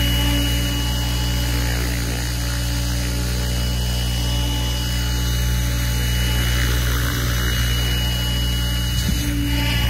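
Goosky RS7 700-size electric RC helicopter hovering: a steady rotor hum with a constant high-pitched whine from the drive, swelling briefly near the end.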